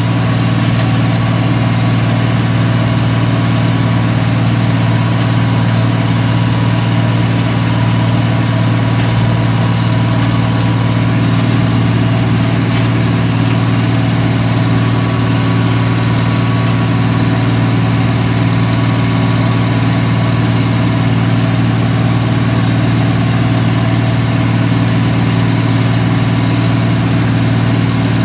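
White 2-85 tractor's diesel engine running steadily at a constant speed, with no change in pitch.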